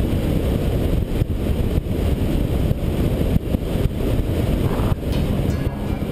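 Wind rushing and buffeting over the microphone of a camera mounted on a hang glider in flight: a dense, fluctuating low rumble with a few sharper gusts.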